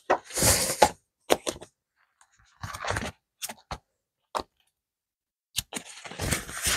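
Paper banknotes and a paper game booklet being handled and tucked into a plastic binder pocket: short rustles of paper and plastic, with a few small clicks and taps in between.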